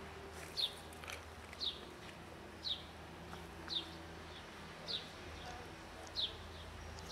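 A bird calling with short, falling chirps, repeated about once a second, six in all.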